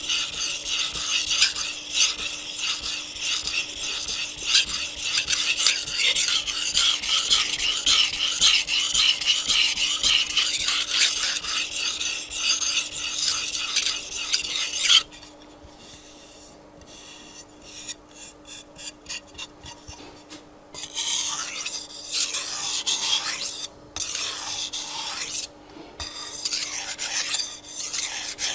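Japanese chef's knife blade scraped back and forth on a wet 800-grit whetstone, a fast run of rhythmic rasping strokes. About halfway through the strokes cut off abruptly and go much quieter and lighter, then louder, separate strokes resume near the end.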